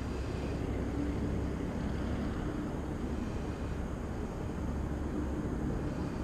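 Steady low outdoor rumble and hiss, with a faint hum that comes in twice.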